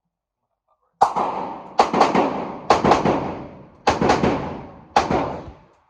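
Handgun shots on an indoor range: about seven shots in quick groups, some in rapid pairs, each with a long echoing tail.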